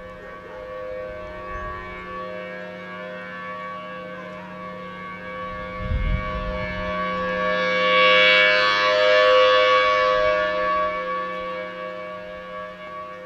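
Federal Signal Thunderbolt 1000T warning siren sounding a steady wail of several tones held at one pitch. It grows much louder and brighter about two-thirds of the way through as the rotating horn turns toward the listener, then fades again. A brief low rumble comes about six seconds in.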